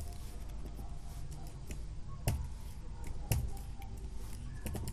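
A few separate computer keyboard key presses, sharp single clicks spaced about a second apart, over a faint steady background hum.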